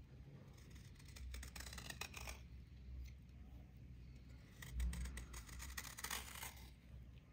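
A small serrated knife scraping a dried, flaking crust off a flat fibrous pad, in two bouts of crackly scraping with the flakes breaking away.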